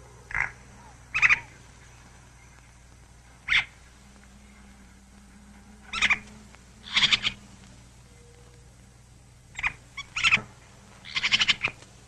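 A series of short, sharp animal calls, about eight of them at irregular intervals, some coming in quick double or triple bursts, over a steady low hum.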